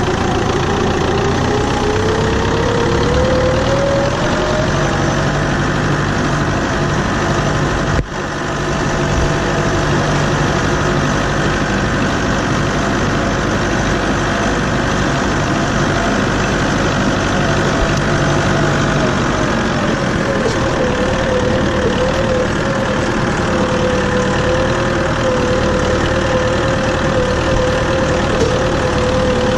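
Farm tractor engine running, its pitch climbing over the first few seconds and then holding steady. The sound drops out briefly about eight seconds in.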